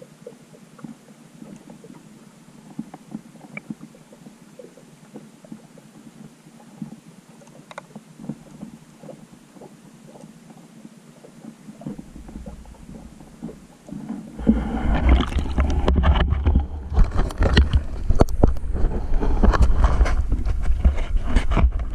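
GoPro in its waterproof housing, underwater in a seagrass bed: faint crackling with scattered small clicks. About 14 s in, as the camera comes up near the surface, loud sloshing, splashing water and a low rumble against the housing take over.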